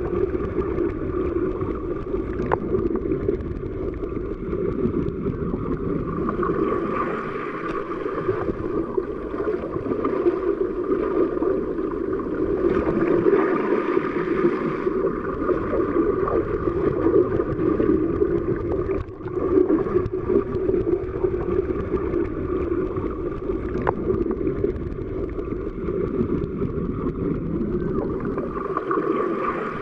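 Underwater ambience: a steady, muffled rush of water with gurgling, a few faint clicks, and a brief drop about two-thirds of the way through.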